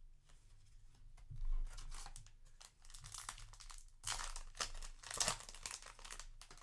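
Foil wrapper of a Yu-Gi-Oh! booster pack crinkling and tearing as it is opened by hand, in irregular crackles that grow louder in the second half.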